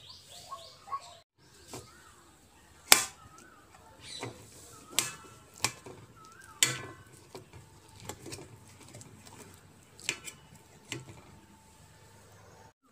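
A metal utensil clinking and scraping against a metal plate while mashing soft roasted eggplant, with about seven sharp clinks at uneven intervals, the loudest about three seconds in.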